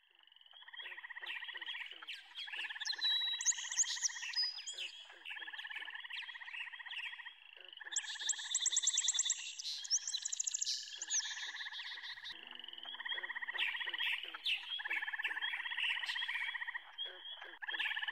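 A chorus of frogs calling: pulsed trills repeating in bouts of a second or so each, with runs of higher, faster chirping at times.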